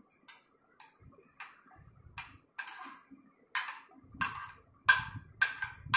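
A metal spoon scraping chopped vegetables off a plate into a glass bowl: about ten short scrapes and clinks, roughly two a second, louder in the second half.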